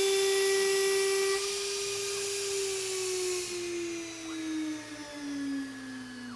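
CNCDepot S30C spindle on a CNC router whining at about 20,900 RPM while an end mill cuts 6061 aluminum. About a second and a half in the cutting stops and the spindle whine falls steadily in pitch as it spins down; a high hiss stops about halfway through.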